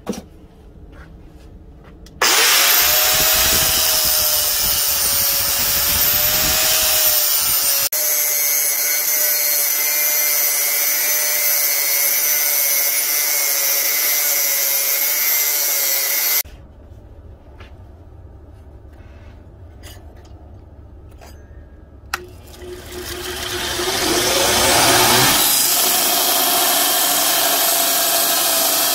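Angle grinder with a thin cut-off wheel cutting through the steel of an old circular saw blade: a harsh grinding hiss over a steady, slightly wavering motor whine. Partway through the cutting stops for several seconds, then the tool spins up with a rising whine and cuts again.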